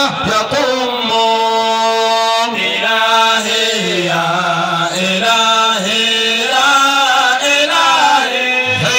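A single voice chanting Arabic religious verse in long, held, ornamented notes that glide from one pitch to the next.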